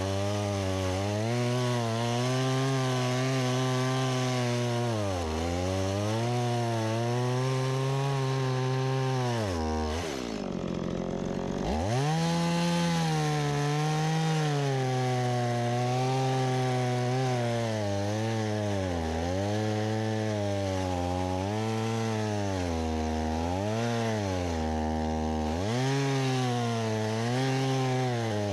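Stihl MS170 chainsaw's small two-stroke engine running at high revs while sawing wood, its pitch dipping again and again under load and picking back up. About ten seconds in the throttle falls away to a low note for a moment, then the engine revs back up and carries on cutting.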